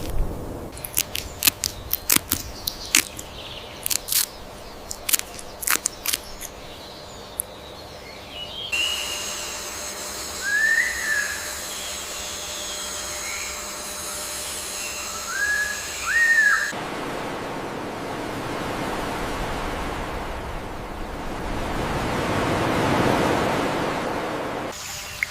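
Edited nature-ambience sound effects. First come scattered sharp clicks and crackles. Then about eight seconds of a few bird chirps over a steady high whine, and finally a rush of noise that swells and fades.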